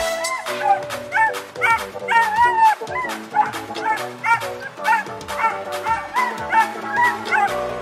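A dog yipping and barking excitedly, short high-pitched calls repeated every half second or so, over background music with a steady beat.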